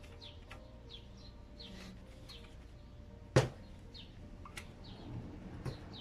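A small bird chirps over and over in short, downward-sliding notes, about two a second. About three and a half seconds in comes one sharp click, the loudest sound, from metal pump parts being handled as the pressure valve is fitted.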